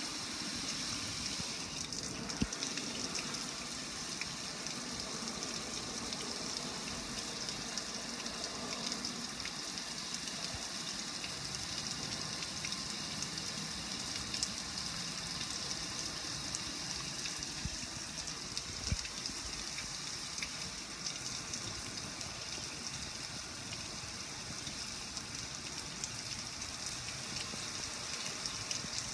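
Water pouring over a gas grill and running off it in many streams, splattering and dripping onto the ground: a steady, even hiss like rain, with a faint knock now and then.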